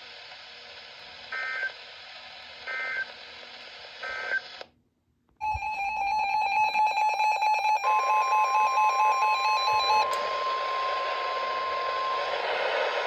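Emergency Alert System data tones over radio hiss: three short two-tone chirps of the end-of-message signal close the severe thunderstorm warning. After a brief dropout, the next alert starts with harsh buzzing data tones, then a long steady alert tone held over static.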